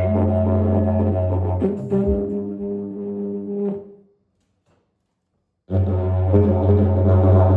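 Didgeridoo playing a steady low drone with rich overtones, which shifts about a second and a half in and then fades out. After a short silence a new drone starts abruptly near the end.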